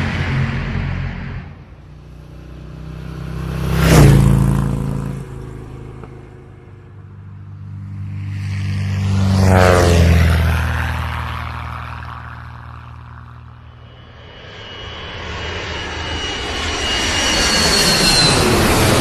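Aircraft engines flying past one after another. Each swells and fades: one peaks about four seconds in, another near the middle with its pitch sliding down as it passes, and a third builds up toward the end with a high whine.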